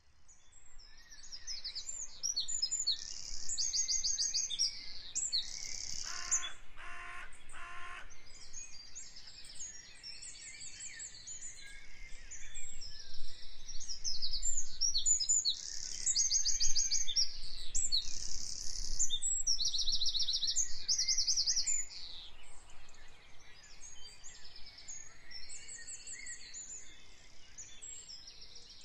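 Recorded bird chorus: many birds singing at once, a dense mix of high chirps and rapid trills, fading in from silence at the start. About six seconds in, a lower call is repeated three times.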